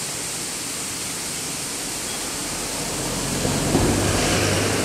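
Steady rushing noise, with a low hum swelling in about three seconds in.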